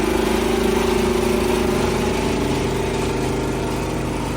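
A motor running steadily, with a constant hum that sags slightly toward the end.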